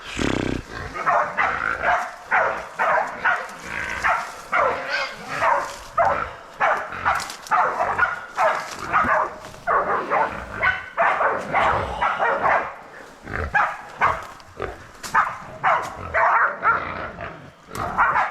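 Hunting dogs barking over and over, about two barks a second, with a couple of short lulls.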